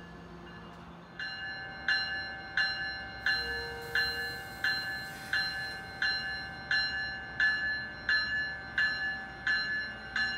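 A railroad warning bell starts ringing about a second in and strikes steadily, about three times every two seconds, over the low rumble of an electric passenger train.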